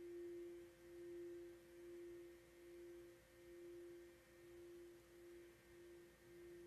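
A tuning fork ringing out on a single low, steady tone, faint and swelling and dipping about once a second as it slowly fades.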